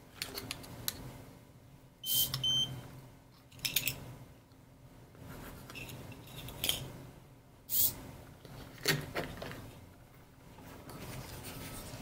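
Small hobby micro servo of an Arduino RFID door lock whirring in several short bursts as the lock opens and closes, with a short high electronic beep about two seconds in.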